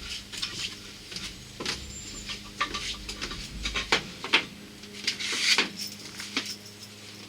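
Small metal wood screws being handled and set in place: scattered light clinks and knocks, with a brief rustle about five seconds in.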